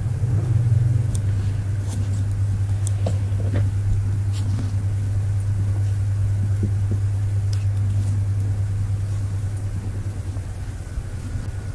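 Steady low electrical or machine hum, with a few faint light ticks scattered over it.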